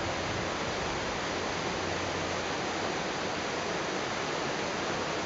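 Torrential downpour: heavy rain falling as a steady, even hiss.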